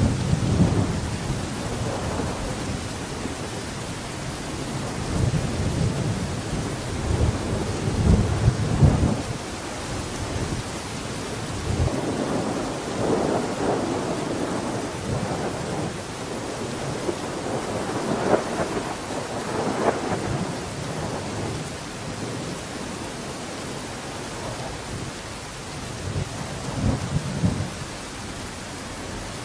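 Steady rushing noise with slow, low rumbling swells every few seconds; the loudest rumbles come around eight seconds in and again near the end.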